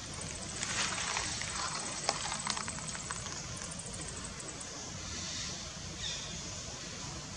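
Outdoor background noise: a steady hiss, with a stretch of rustling and a few sharp clicks about one to three seconds in.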